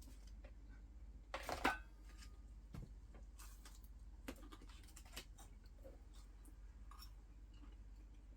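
Quiet small handling sounds: scattered light clicks and ticks over a steady low hum, with one brief louder rustle or clatter about a second and a half in.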